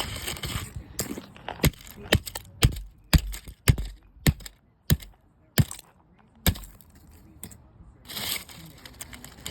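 Hammer striking an alarm clock: about a dozen sharp cracking blows, roughly two a second, that stop after about six and a half seconds, followed by a short stretch of rustling near the end.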